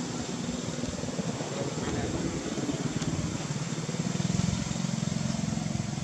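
A motor vehicle's engine running, growing louder in the second half.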